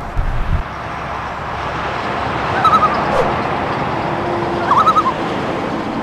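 A bird calls twice, each call a quick run of short chirps, over a steady rushing hiss that swells in the first couple of seconds.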